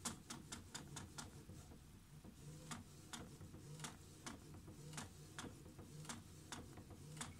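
HP DeskJet 720C inkjet printer printing a page: a faint motor whir with a quick run of clicks in the first second, then a click roughly every half second as the print carriage shuttles back and forth, printing in both directions.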